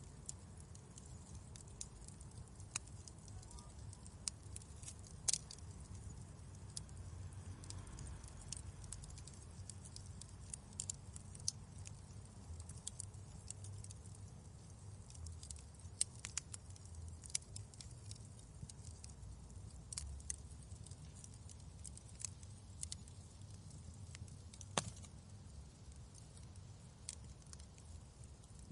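Wood fire burning in a fireplace: irregular sharp crackles and pops over a low, soft rumble of flames.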